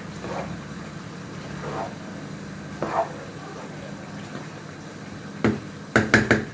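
Wooden spoon stirring ground beef browning in a large pot, with soft scrapes at each stroke over a steady low hum. Near the end the spoon is knocked several times against the pot's rim.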